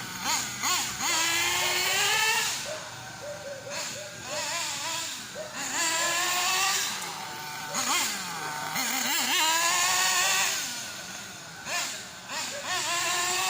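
S.H PT28XM-P6 .28 nitro engine in a 1/8th-scale RC buggy, revving up and down as the buggy drives. Its high-pitched note climbs and drops again about four times.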